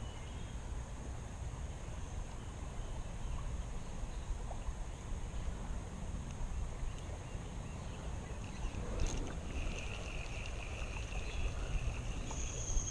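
Creekside ambience: a steady rushing rumble of flowing water and wind, with a thin high insect drone running throughout and a brief higher insect or bird call about ten seconds in.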